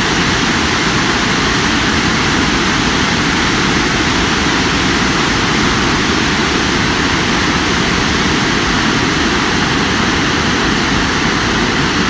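Loud, steady rushing noise with no distinct events and no change in level.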